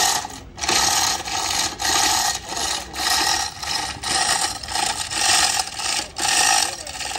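A hand tool scraping metal in regular back-and-forth strokes, about one and a half a second, as in filing or hand-sanding truck bodywork.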